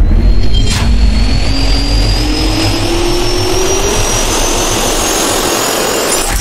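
Jet turbine spool-up sound effect: a whine rising steadily in pitch over a heavy rumble and rushing noise, with a sharp hit a little under a second in.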